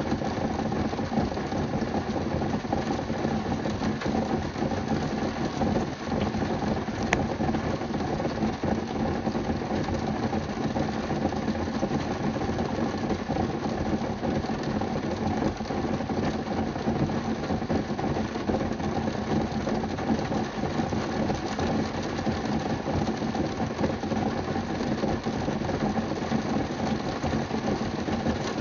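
Rain drumming on a car's roof and windows, heard from inside the car: a dense, steady patter.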